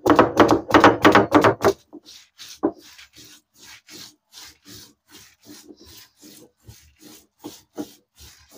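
Stone roller rubbed back and forth over a flat Kerala grinding stone (ammikkallu), crushing grated coconut with garlic and cumin into a coarse paste. The scraping strokes are quick and loud for the first couple of seconds, then lighter at about three a second.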